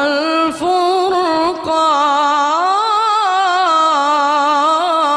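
A man chanting Quran recitation in a slow melodic style, holding long, richly ornamented vowels whose pitch wavers and glides up and down. There are short breaks about half a second and a second and a half in.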